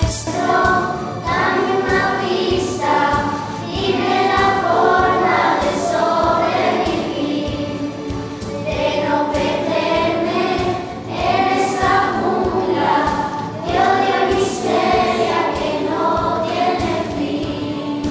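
A song sung in chorus by several voices over instrumental accompaniment, with long held notes.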